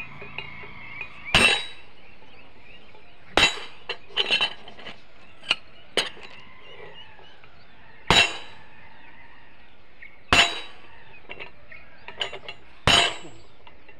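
Hammer blows on steel: a track wrench fitted on a rail fastening struck to knock it tight, giving sharp ringing metal clanks about every two seconds, with lighter clinks in between.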